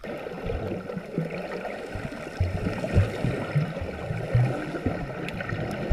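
Muffled underwater sound heard through a camera held below the surface: a steady watery hiss with irregular low thumps and knocks.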